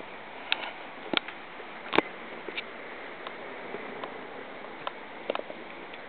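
A few short, faint clicks and taps, the sharpest about two seconds in, over a steady background hiss.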